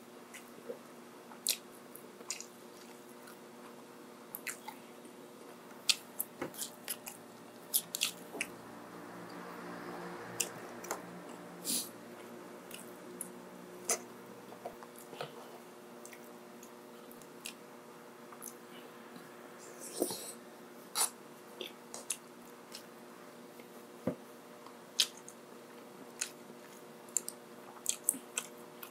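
Close-miked chewing and biting: wet mouth clicks and smacks at an uneven pace as a person eats.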